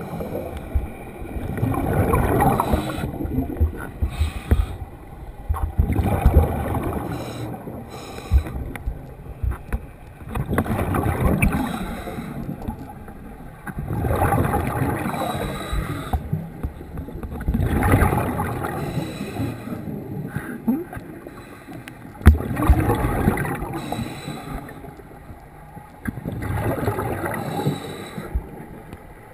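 Scuba diver breathing through a regulator underwater: a rush of exhaled bubbles about every four seconds, seven times, with a fainter hiss between.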